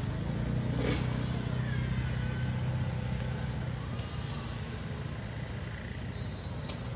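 A steady low engine-like drone, with a sharp knock about a second in.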